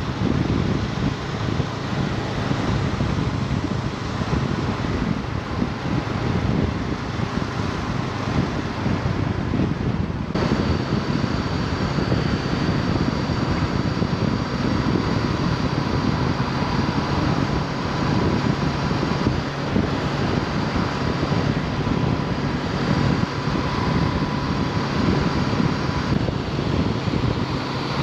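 Honda CB500X's parallel-twin engine running at a steady cruise, with heavy wind rush on the helmet microphone. About ten seconds in the sound shifts and a faint steady high whistle joins the wind.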